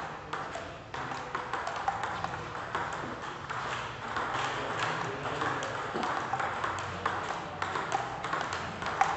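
Table tennis balls clicking off paddles and the table in a rally, irregular sharp ticks throughout, over the steady murmur and scattered knocks of a busy playing hall.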